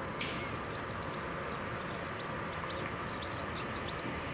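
Outdoor background noise with small birds chirping on and off, over a faint steady hum.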